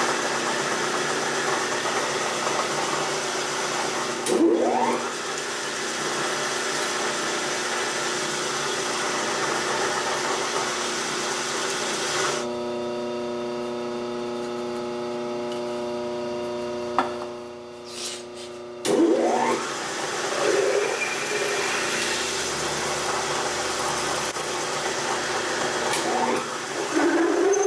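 Drill press running a twist drill into an aluminium block: a steady motor hum with the hiss of cutting over it, and a short rising squeal as the bit bites about four seconds in. From about twelve seconds the cutting hiss stops and only the motor's hum is left for several seconds. Around nineteen seconds the cutting resumes, with more brief squeals.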